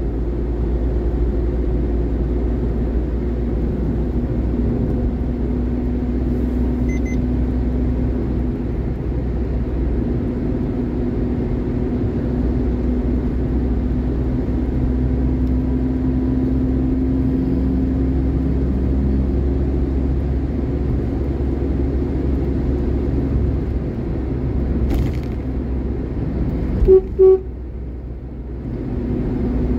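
Steady engine and road noise of a vehicle travelling along a highway, with a low hum throughout. Near the end a horn sounds twice in quick succession, two short blasts, and the noise briefly drops.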